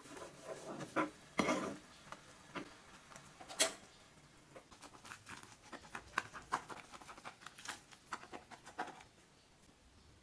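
Kitchen knife cutting through a pan-fried fu yung hai egg omelette on a cutting board: a few louder knocks in the first few seconds, then a fast run of small crackles as the fried crust is sliced.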